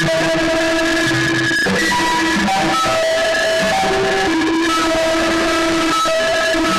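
Electronic music generated by a homemade movement-controlled MIDI sound suit: sustained pitched notes, several sounding together, that step to new pitches every second or so as the wearer moves his hands.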